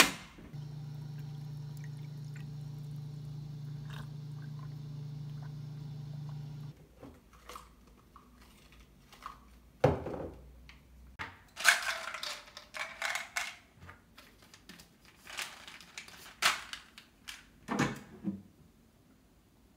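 A steady electric hum for about the first six seconds, then scattered light knocks and taps and a few seconds of pouring-like noise as a drink is made with a cup and a glass mug.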